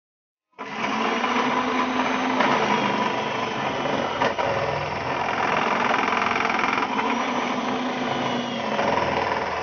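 Electric food processor motor running at steady speed, grinding cassava into a paste. It starts about half a second in, with a couple of brief knocks.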